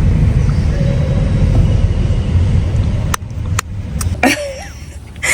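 Low rumbling noise that drops away about three seconds in, followed by two sharp clicks in quick succession and a third click about half a second later.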